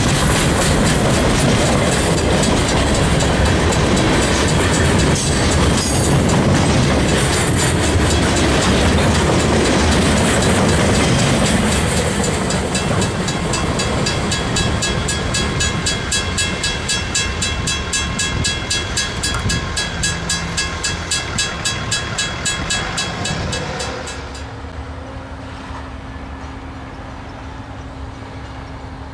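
Freight train of hopper cars rolling past at close range, wheels clicking over the rail joints. As the last cars pass and the train draws away, the grade-crossing bell is heard ringing in even strokes. About two-thirds of the way in the sound drops abruptly to a quieter, distant train with a steady low hum.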